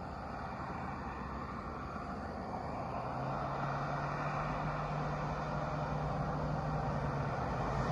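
A motor vehicle going by: a steady rushing sound that grows louder, with a low, steady engine hum coming in about three seconds in and fading near the end.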